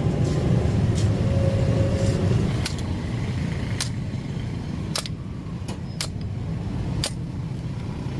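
Steady low rumble of road traffic with about half a dozen sharp metallic clicks and taps scattered through it, as from tools on motorbike front-fork parts.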